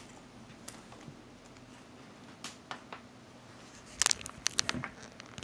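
Small plastic containers being handled and set down on a glass tabletop: a few faint taps, then a quick cluster of sharp clicks about four seconds in.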